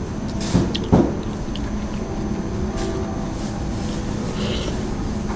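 Steady background din of a busy airport food court, with two short knocks about half a second and a second in.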